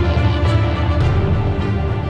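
News channel intro theme music: sustained chords with a regular beat, gently fading in level.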